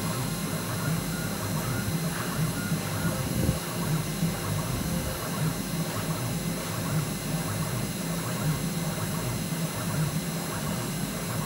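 CNC spindle running steadily as a fine tapered cutter mills a bone guitar-nut blank: an even cutting noise with a thin high whine over a low hum.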